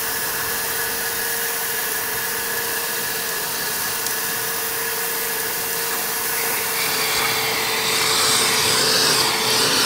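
Milwaukee M18 FUEL PACKOUT 2.5-gallon wet/dry vacuum running on its high setting with a steady whine, its nozzle sucking up a pile of dry sand. A brighter hiss rises about seven seconds in as the last of the pile is drawn up the hose.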